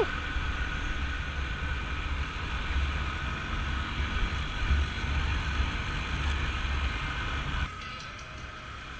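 Vehicle running on the move: a steady low rumble of engine and road noise, which drops away suddenly near the end to a quieter hum.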